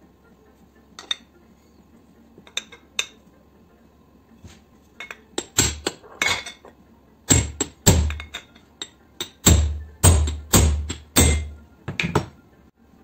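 A club hammer striking a steel punch set into a pressure washer's aluminium motor end housing, knocking at the centre where the motor bearing sits: about a dozen sharp, ringing metal blows at an uneven pace of one or two a second, after a few light clinks of the housing being handled.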